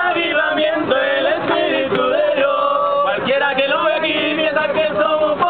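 A group of young men singing together, loud and continuous.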